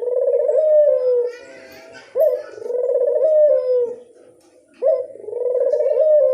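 Barbary dove (burung puter) cooing, about three phrases spaced roughly two and a half seconds apart. Each opens with a quick rising note, rolls into a trembling coo and ends on a falling note.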